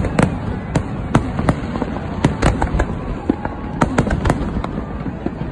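Fireworks display: aerial shells bursting in a dense, irregular barrage of sharp cracks and bangs, several a second, over a steady low rumble.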